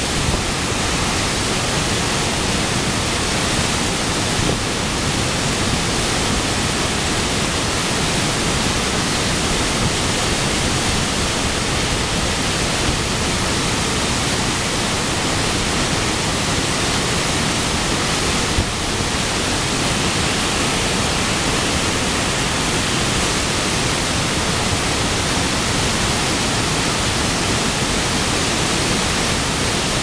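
Heavy flow of water pouring over the crest of a concrete sabo (erosion-control check) dam and crashing into the pool below: a loud, steady roar of falling water.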